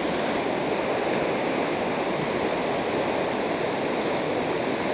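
Fast river current, running high after a typhoon, rushing steadily in an even, unbroken noise.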